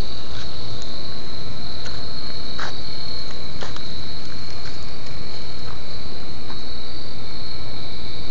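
Steady high-pitched chorus of night insects trilling without a break, over a constant hiss, with a few faint scattered ticks.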